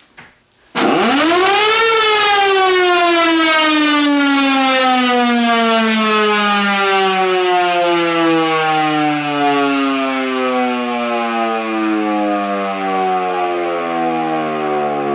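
Federal Signal Model 2 electromechanical siren on 240 volts. It starts suddenly about a second in with a wail that rises quickly in pitch, then slowly falls in pitch for the rest as the rotor slows.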